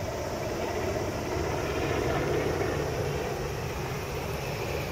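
A low-flying US military Sikorsky H-60-series helicopter passing over, its rotor and turbine noise steady, then easing off slightly in the second half as it moves away.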